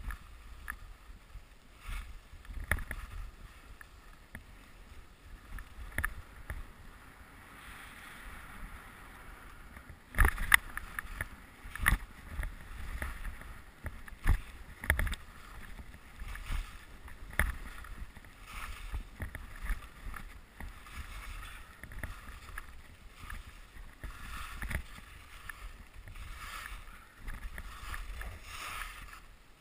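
Skis hissing and scraping over snow on a downhill run, the hiss swelling and fading with each turn, with many irregular sharp knocks and clicks, loudest about ten to twelve seconds in. A low rumble runs underneath.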